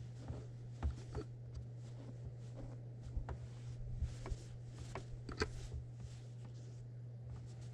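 Quilt fabric rustling and shifting under the foot of a domestic quilting sewing machine, with scattered irregular clicks over a steady low hum.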